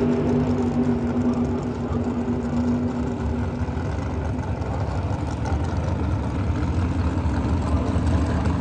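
Drag racing engines idling, a steady low rumble. A higher steady engine note fades out about three seconds in, and the low rumble grows stronger in the second half.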